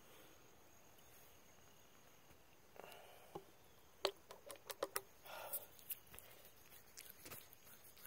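Hand sanitizer being squeezed from a small plastic bottle into the palm, with close handling noise: a quick run of about six sharp clicks about four seconds in, brief rustles, and a few single clicks against a faint, quiet background.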